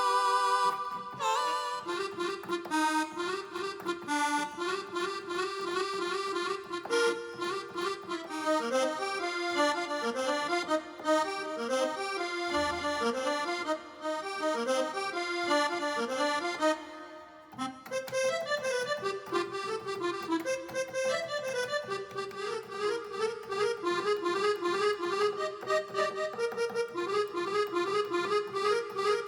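Accordion sound on a Korg N264 keyboard playing a fast melody in quick runs of notes, with a brief break about seventeen seconds in.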